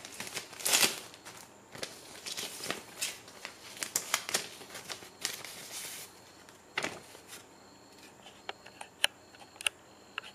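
A clear plastic sleeve crinkling and rustling as a paper banknote is handled and slid out of it, with many sharp crackles. About six seconds in the rustling thins to a few isolated ticks.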